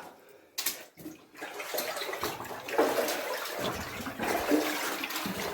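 Water splashing and sloshing, starting a little over a second in after a few faint knocks, then churning unevenly.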